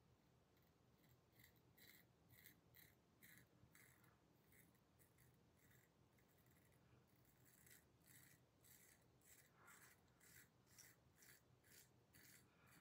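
Faint, quick scraping strokes of a Kampfe Bros Star safety razor cutting stubble through shaving lather, about two strokes a second, with a short pause around the middle.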